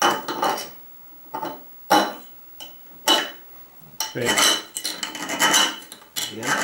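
Kitchen knife blade sawing at the neck of a glass beer bottle: metal scraping on glass in short, uneven strokes, with a faint thin ring through several of them.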